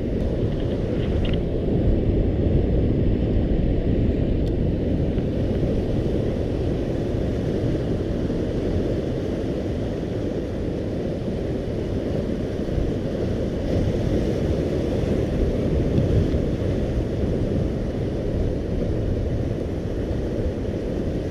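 Steady low rumble of wind buffeting an action camera's microphone, with sea surf on a rocky shore underneath.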